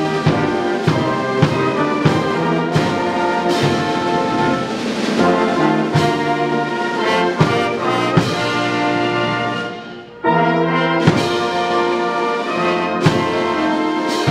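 A brass band playing, its held brass chords over drum beats; the music briefly drops away about ten seconds in, then comes back in with a loud chord.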